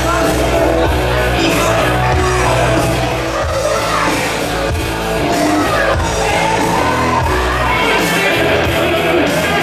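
Loud music with singing, with shouting voices over it.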